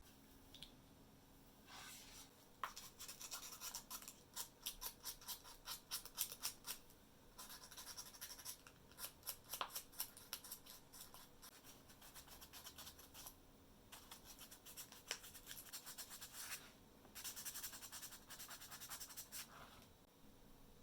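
Quick back-and-forth scratchy strokes on a hard part, like brushing or scrubbing, in four spells with short pauses between them.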